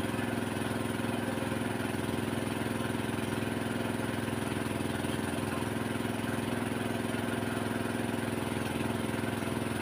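A small engine running steadily at a constant speed, an even drone.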